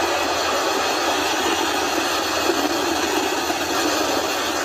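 Falcon 9 first stage's nine Merlin 1D engines firing just after liftoff: a steady rushing noise with little deep bass.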